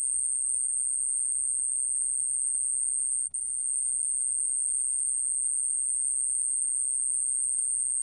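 좀방울벌레, a small Korean cricket, singing a continuous high-pitched trill, recorded at 29 °C. It breaks off for an instant about three seconds in.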